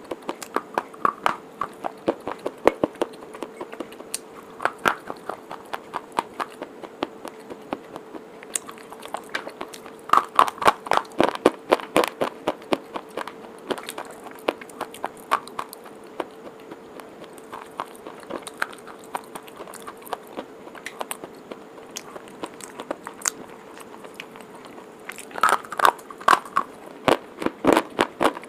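Close-miked biting and chewing of white chalk sticks: sharp, dry crunches, with dense runs of rapid crunching around ten to thirteen seconds in and again near the end.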